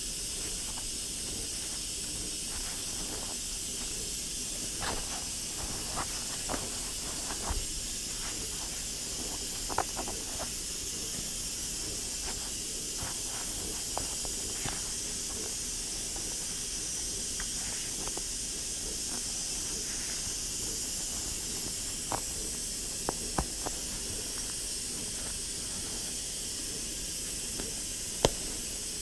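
Pressure cooker hissing steadily with steam, with scattered light clicks and taps from peeling citrus with a plastic peeler in ski mittens, the sharpest tap near the end.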